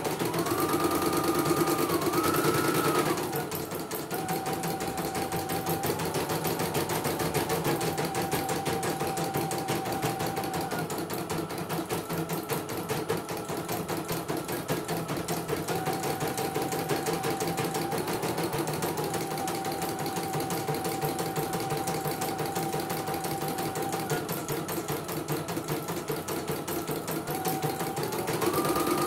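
CNY computerized embroidery machine stitching a design: a fast, even run of needle strokes, with a motor whine that comes and goes and shifts in pitch as the hoop carriage moves. It runs louder for the first few seconds and again near the end.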